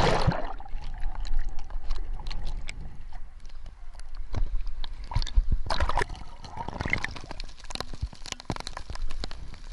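Water splashing and sloshing close by, with a loud splash right at the start and more splashing about six to seven seconds in, among many small clicks and knocks.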